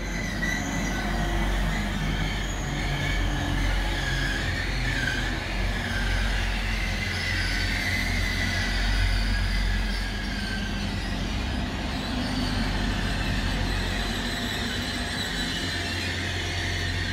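Diesel train running close by: a steady low engine rumble with a wavering high-pitched squeal from the wheels on the rails.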